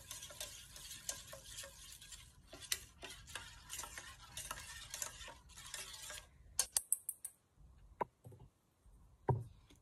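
Metal spoon stirring a wet food mixture in a stainless steel bowl, scraping softly with many small clinks against the bowl. About two-thirds of the way in, the stirring stops and gives way to a few sharper separate clinks and knocks.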